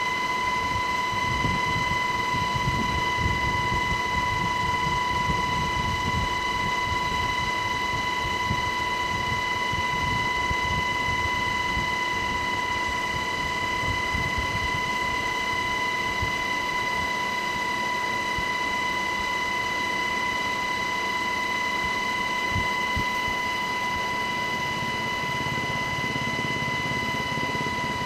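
UH-60 Black Hawk helicopter in flight, heard from inside the cabin with the door open: a steady high whine over an uneven low rumble of rotor and wind.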